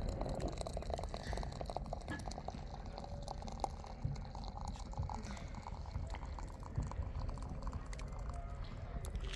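Liquid pouring and dripping, with many small ticks over a steady low rumble.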